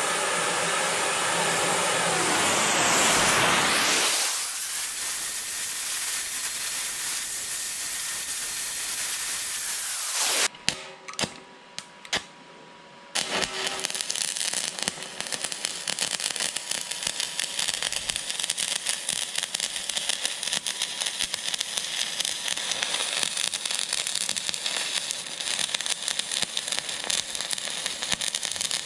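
A gas heating torch hisses steadily as it preheats the steel, loudest over the first four seconds. After a brief lull with a few clicks about 11 seconds in, a stick (MMA) welding arc crackles steadily while a filler rod runs weld into the V-groove cut out along a crack in a steel excavator dipper arm.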